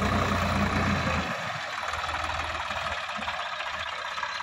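Sonalika DI-50 RX tractor's diesel engine running under load, loudest for about the first second and then easing, over a steady wash of higher noise.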